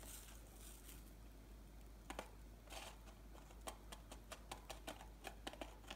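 Faint small clicks and light scratching as fingers press and roll fondant pieces in coarse sugar in a plastic tub, a few at first and then coming several a second in the second half.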